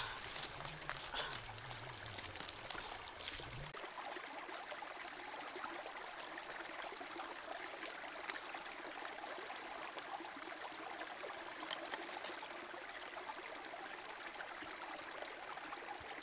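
Small forest stream running over rocks: a steady trickling, babbling rush. A low wavering hum and a few light clicks sit under it for the first few seconds, then stop.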